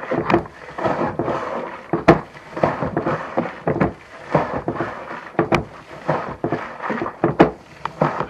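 Hand-operated diaphragm bilge pump being worked, drawing bilge water up through its hose, with irregular knocks from the strokes over a rough watery wash.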